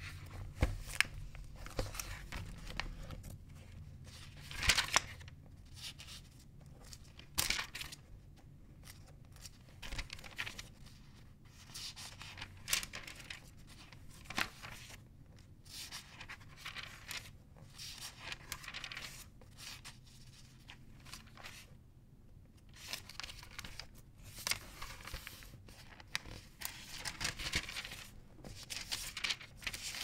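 Paper pages of a book being turned and handled: irregular crisp rustles and swishes every few seconds, the loudest about five seconds in.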